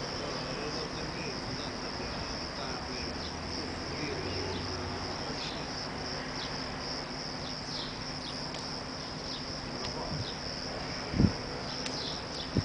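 Crickets chirping in a steady high-pitched chorus over a faint low hum, with a dull thump about eleven seconds in.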